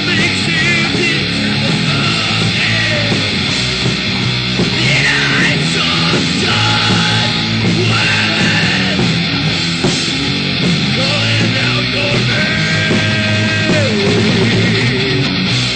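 Live heavy metal band playing loud: distorted electric guitars, bass and drums, with a vocalist singing over them.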